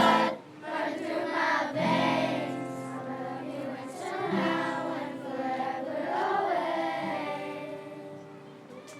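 Children's choir singing the closing phrases of a song, the voices growing quieter toward the end.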